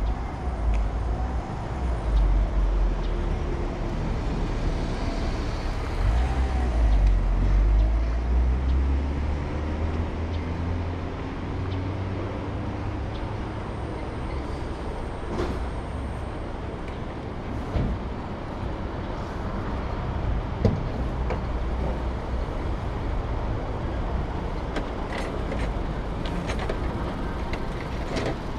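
A motor vehicle passing: a deep rumble that swells in the first twelve seconds, with a slowly rising engine note, then settles into steadier traffic noise.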